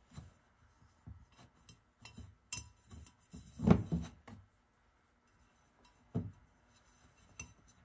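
Scattered light clinks and knocks of a steel wet cylinder liner being handled and set on a wooden workbench while rubber O-rings are fitted into its grooves. The loudest is a single knock a little under four seconds in.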